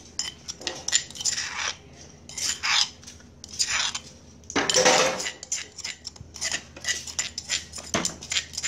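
Metal spoon scraping and clinking against the inside of a stone mortar, scooping out pounded tamarind sauce in a run of irregular scrapes, the longest and loudest about five seconds in.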